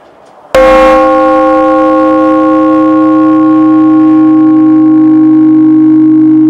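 Large cast church bell heard from inside the bell itself: struck once about half a second in, then ringing very loudly with a low hum and several higher tones that hardly fade.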